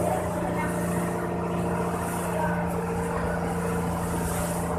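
Pump boat's engine running at a steady, even drone while the boat is underway, with water rushing and splashing along the hull and outriggers and swelling and fading every second or so.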